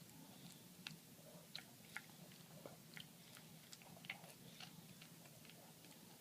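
Chewing: faint, irregular crunching clicks, roughly one or two a second.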